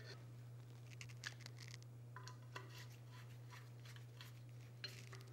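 Faint scratching and clicking of a Phillips screwdriver turning the small screws with lock washers that hold the oil breather baffle in a Datsun L26 engine block, over a low steady hum.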